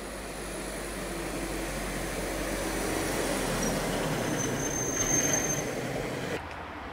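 Light flatbed truck driving past, its sound building to a peak about five seconds in, with a brief high squeal at the loudest point. The sound cuts off suddenly near the end.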